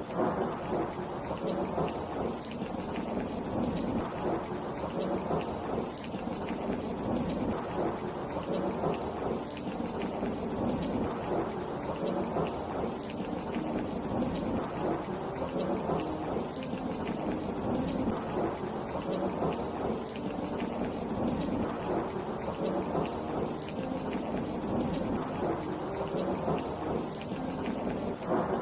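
Heavy rain falling steadily: an even, unbroken wash of sound, fullest in the low and middle range.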